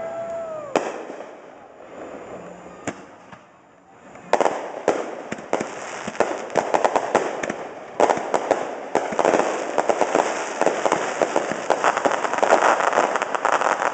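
Fireworks display: two single sharp bangs in the first three seconds, then from about four seconds in a dense, rapid barrage of bangs and crackling that builds toward the end.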